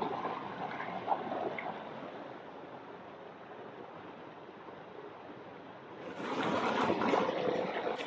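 Steady rush of running water from a mountain stream. It drops to a softer hiss in the middle and swells louder again near the end.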